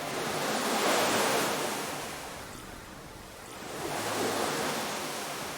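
Sea waves washing onto a shore, in two swells: the first peaks about a second in, the second about four seconds in.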